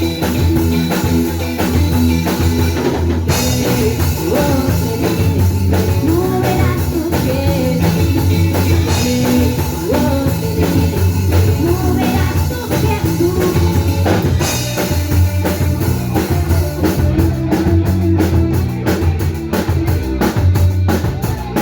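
Rock band playing live: drum kit, bass and electric guitar, with a wavering melody line through the middle and a quick, even run of drum strokes near the end.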